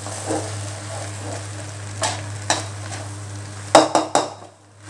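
Spatula stirring and scraping fried rice around a wok as it sizzles. A few sharp clacks of the spatula against the wok come about two seconds in and in a quick cluster near the end, over a steady low hum.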